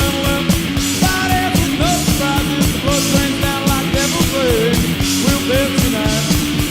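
Rock music with drums, a sung vocal and a steady beat, cutting off suddenly at the end.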